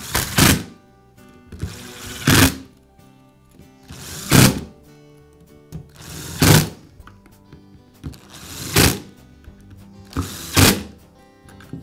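Power screwdriver running in six short bursts, about one every two seconds, each rising briefly to a peak as it drives a screw home into a drill's plastic housing.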